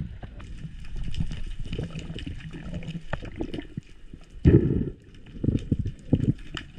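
Sea water sloshing and gurgling against an action camera's waterproof housing at sea, with scattered small clicks and louder low surges of water about four and a half seconds in and again near the end.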